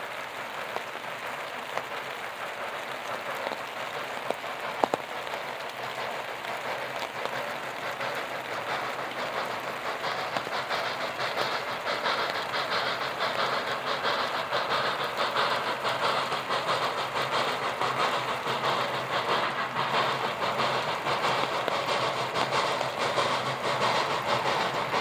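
Western Maryland Scenic 1309, a 2-6-6-2 Mallet steam locomotive, and its train heard in steady rain, the train noise growing gradually louder as it approaches. A single sharp click about five seconds in.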